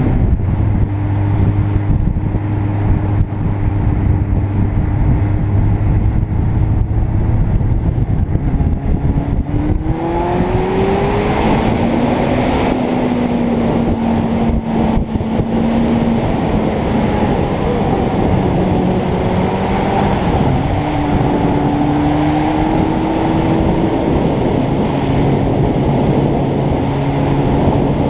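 Motorcycle engine running on the road, with wind noise on the microphone. Its pitch holds steady for about ten seconds, then rises as it accelerates and steps down and back up with gear changes.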